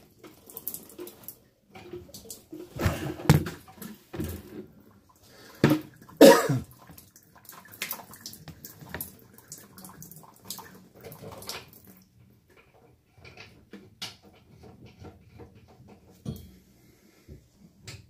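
Water splashing and sloshing amid irregular knocks and clatter, with two louder splashes about 3 and 6 seconds in, then scattered light clicks.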